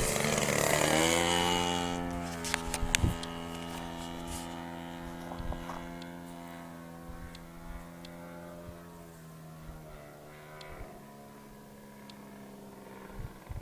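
Engine of a radio-controlled aerobatic model plane buzzing as it flies past close, its pitch dropping as it goes by in the first two seconds. It then drones on more quietly at a distance, shifting pitch as the plane manoeuvres near the end.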